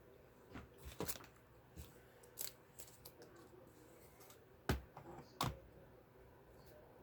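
VacMaster 5-gallon wet/dry shop vac extension tubes being handled and fitted into their holders on the vacuum's body: scattered clicks and knocks, the sharpest about two-thirds of the way in with another a moment later.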